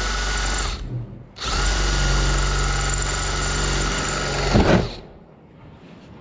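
A power tool running at one steady speed with a constant whine, in two long bursts: a short one at the start and a longer one that ends with a brief louder flare about five seconds in.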